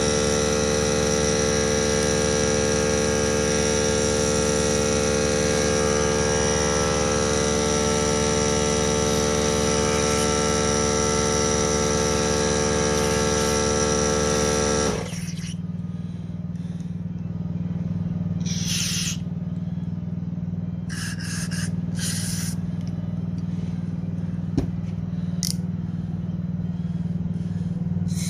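A motor runs steadily and then cuts off abruptly about halfway through. A low hum carries on after it, with several short bursts of hissing.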